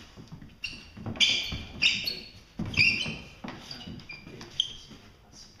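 Sharp knocks and short squeaks in four or five quick bursts from two people drilling Wing Chun at close range: arms meeting and striking, and feet shifting on the mat.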